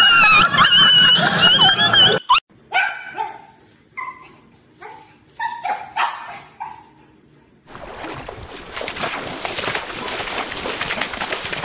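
A high-pitched wavering animal whine, then a run of short yips falling in pitch from golden retrievers, then a pack of golden retrievers splashing into a swimming pool, the splashing starting about eight seconds in and building.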